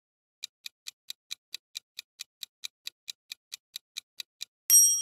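Clock-ticking sound effect for a quiz countdown timer, even ticks about four and a half a second. Near the end a loud bright ding strikes and rings on, marking that time is up.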